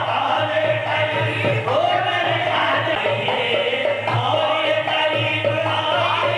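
Sufi devotional group singing in the manner of qawwali: held, gliding sung lines over a steady low beat.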